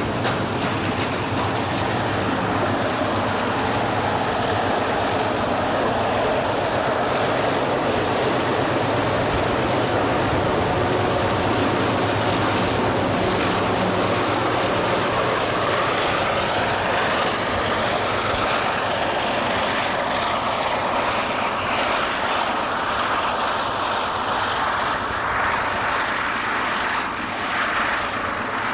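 Alco diesel locomotives working hard under load up a grade: a loud, steady heavy engine drone with a whine that rises in pitch partway through.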